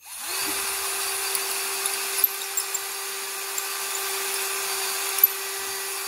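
Small handheld rotary tool spinning a drill bit in a steel screen-door hinge's hexagon-shaped hole, reaming it out to a round 6 mm bore so the hinge rod will slide through smoothly. The motor starts at once and holds a steady whine throughout, with a few sharp ticks of the bit catching the metal.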